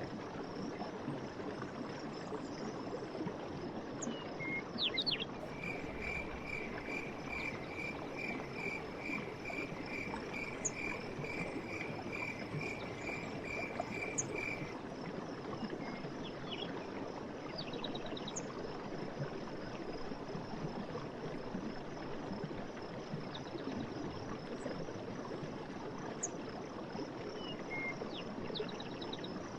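Forest stream running steadily, with birdsong over it: a repeated short note about twice a second for around nine seconds, a few scattered chirps, and a faint, steady, high insect buzz.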